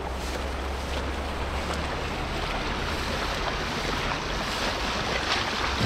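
Steady rush of a fast-flowing river current, with wind rumbling on the microphone.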